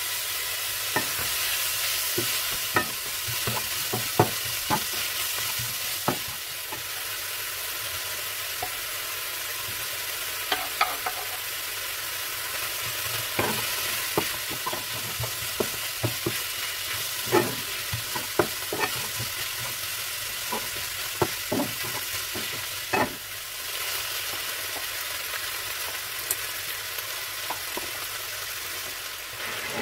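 Chicken, onion and bell pepper sizzling in a nonstick frying pan as a wooden spatula stirs them, with steady frying hiss and irregular sharp knocks and scrapes of the spatula against the pan.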